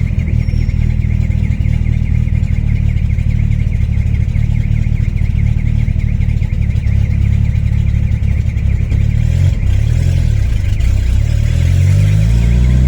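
Turbocharged VW AP 1.9 engine of a Voyage (Holset HX40 turbo, 350T camshaft) running steadily at low revs while driving. From about nine seconds in the revs rise and fall a few times, then climb again near the end.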